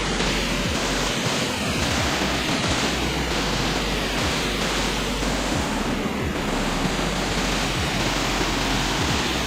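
Loud, steady rush of falling water from a large waterfall.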